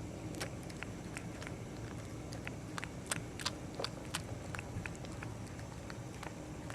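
A cat chewing fresh grass: small crisp irregular clicks, a few a second, over a steady low background hum.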